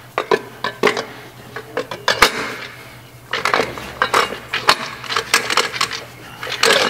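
Metal clinks and taps as a steel clutch drum is turned and wiggled down over the shaft splines inside a 700R4 transmission case, with one sharper knock about two seconds in.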